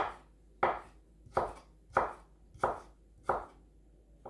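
Pampered Chef Santoku knife slicing ginger thinly on a wooden cutting board: six crisp, evenly paced cuts, about one every two-thirds of a second, the blade tapping the board on each stroke.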